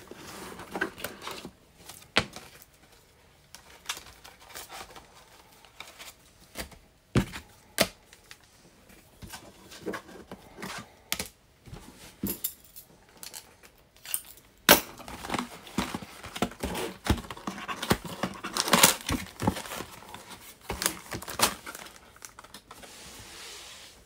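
Plastic shrink-wrap being torn and crinkled off a sealed cardboard trading-card box, with scattered clicks and taps of the box being handled and opened. The crinkling gets denser and louder in the second half.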